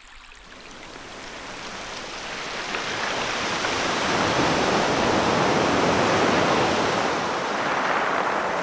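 Ocean waves washing onto a shore: a wave's rush of surf builds up from quiet over the first few seconds, peaks, then eases slightly.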